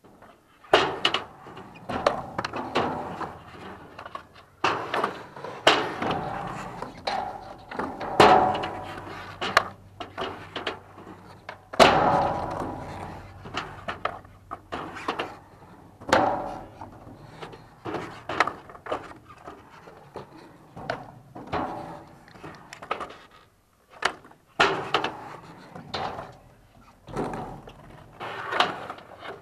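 Skateboard riding a mini ramp: wheels rolling over the ramp surface, broken by many sharp clacks and thuds as the board hits the ramp and the metal coping on drop-ins and tricks.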